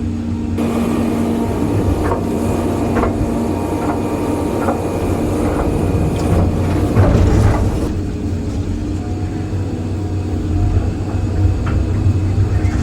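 Excavator engine running steadily under load while the bucket works broken concrete. From about half a second in until about eight seconds, a loud noisy stretch with a series of sharp knocks and cracks as the concrete is scraped and broken.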